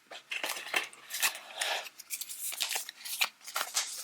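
Cardboard product box being opened and its contents handled: an irregular run of short taps, scrapes and paper rustles.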